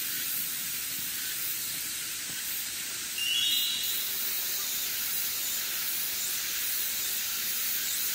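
Forest ambience: a steady high hiss throughout, with a bird chirping briefly in a few short rising notes about three seconds in.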